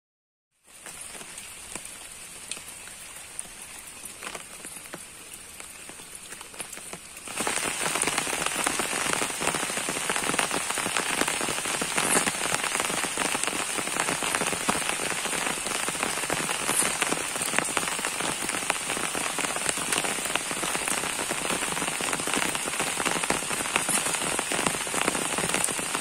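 Steady rain falling on water and leaves, an even hiss of many drops. After a moment of silence at the start it is fairly faint, then about seven seconds in it turns much louder and stays steady.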